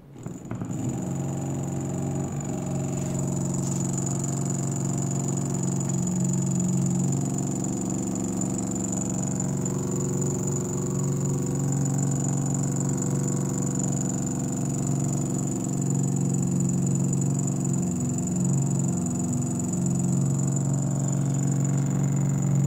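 12 V 120 A car alternator converted to a brushless DC motor, driven by a sensorless BLDC controller, spinning up in about the first second and then running steadily, with a hum and a steady high whine.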